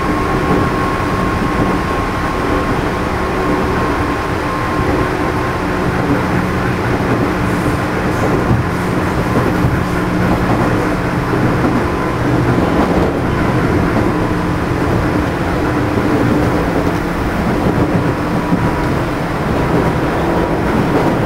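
JR East 211-series motor car MoHa 211-1 running on the line: its external-fan traction motors and gears give a steady whine of held tones over the continuous rumble of wheels on rail. This is the car known for its unusual motor noise.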